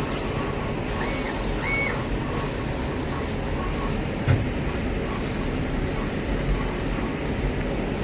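Boss Laser 3655 CO2 laser cutter running a fast vector cut. Its stepper-driven gantry moves over the steady hiss of the air assist, with two short high whines near the start. One thump comes about four seconds in; the owner puts such thumps down to a stepper motor missing a step at this 400 mm/s speed.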